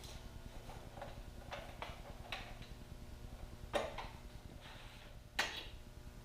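Bosch GCM12SD sliding miter saw being tilted over to its bevel: a few light clicks and knocks from the bevel lock and saw head, then two louder metallic clunks with a short ring, a second and a half apart.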